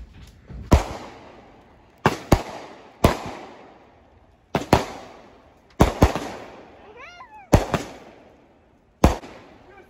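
A multi-shot consumer firework cake firing shells that burst overhead. There are about ten sharp bangs, roughly one a second and some in quick pairs, each trailing off in an echo.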